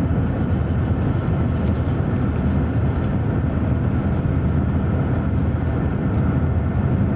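Steady low rumble of road and wind noise in a car travelling at highway speed alongside a moving freight train.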